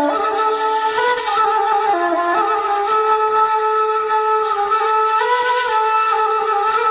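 A woodwind instrument playing a melody of held notes that step up and down in pitch, with no pauses.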